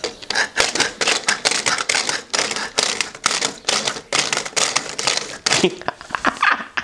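3D-printed plastic bevel-gear motion rectifier with toothbrush-bristle ratchets, turned back and forth by hand, giving a rapid irregular run of clicks. The nylon bristles ride over the gear teeth as the freewheeling ratchet slips, so the output keeps turning one way whichever way the input goes.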